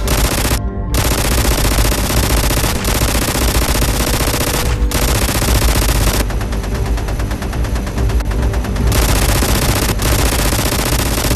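Rapid automatic gunfire sound effects, long bursts of machine-gun fire, dubbed over toy-blaster shooting; a tight, fast run of shots from about six to nine seconds in.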